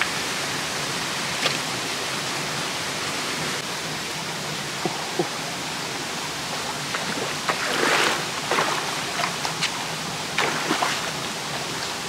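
Mountain stream rushing steadily over rocks. A cluster of short splashes and sharp knocks comes from about eight to eleven seconds in, as a stick is jabbed into the shallow water.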